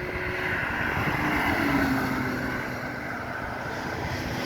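A vehicle running: steady engine and wind noise, with an engine note that falls slowly in pitch.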